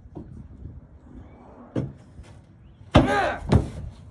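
A few knocks and thumps of things being handled: a faint knock, then a sharp bang about three seconds in, the loudest sound, followed half a second later by a second knock.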